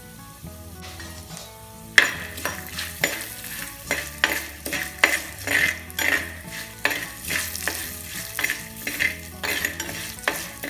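Steel slotted spatula scraping and stirring peanuts, roasted gram, dried red chillies and curry leaves as they fry in oil in a terracotta clay pot. The quick, repeated scraping strokes start about two seconds in and run at about two or three a second.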